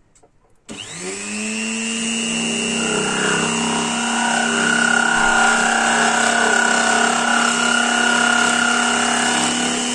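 Electric motor of a small machine tool driving a drill bit, switched on about a second in. Its hum and whine rise quickly to speed, then it runs steadily, not yet cutting.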